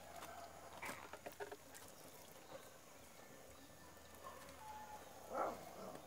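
Faint outdoor ambience with two short animal calls, one about a second in and another near the end, and a few light clicks between them.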